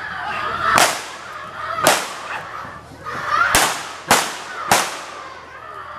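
Revolver firing blanks in a staged gunfight: five sharp shots with ringing tails. The first two come about a second apart, then three follow in quick succession near the middle.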